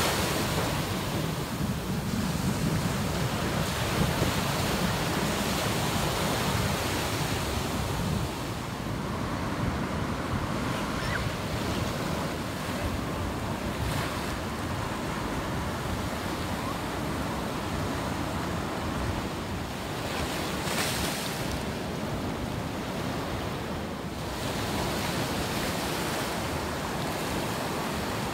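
Ocean surf breaking and washing toward the shore, a steady rushing noise that is somewhat louder for the first several seconds.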